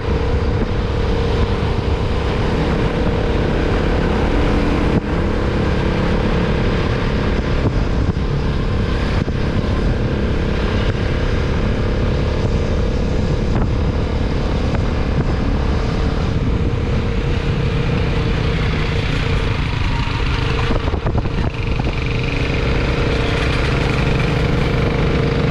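A motor vehicle's engine running steadily on the move, a continuous drone with a steady hum and rushing noise.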